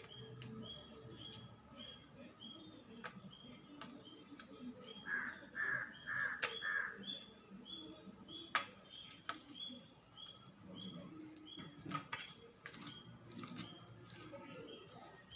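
Fluffy slime being handled, making scattered sharp clicks and pops. Behind it a bird chirps steadily about twice a second, and a louder call comes four times in quick succession about five seconds in.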